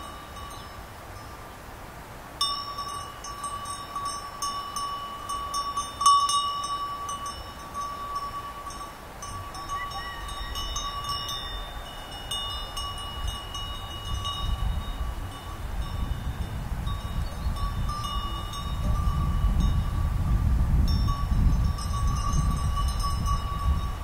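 Sheep bells clanking irregularly, several bells of different pitch ringing at once, starting about two seconds in. A low rumble builds through the second half.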